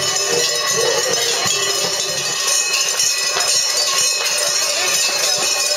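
Many cowbells jangling continuously among a crowd of spectators, a dense clanging ring with many overlapping tones.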